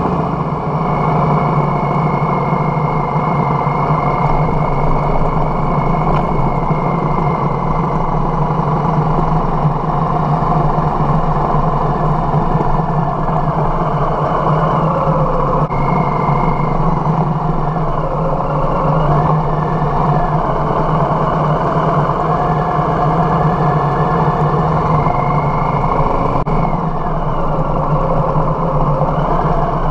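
Harley-Davidson Softail Heritage V-twin engine running, heard from on the bike as it rides through town streets. The engine note drops and climbs again a few times as the bike slows and pulls away.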